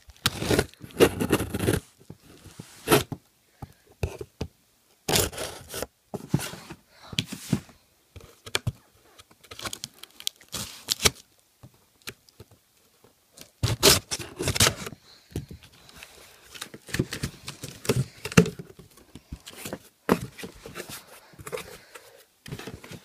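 Packing tape on a cardboard shipping box being slit with a scissors blade and torn, with cardboard flaps scraping and rustling as the box is pulled open. It comes in irregular bursts with short pauses between.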